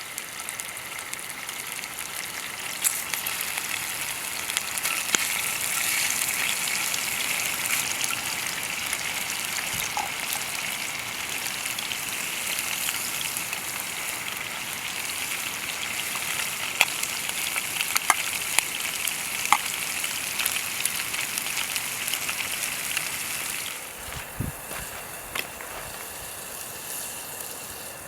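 Food sizzling in a skillet over a campfire: a steady hiss with scattered sharp pops. It turns quieter about four seconds before the end.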